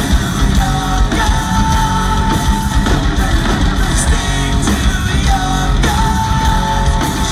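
Rock band playing live: electric guitar, bass guitar and drums with singing, and a long held note twice.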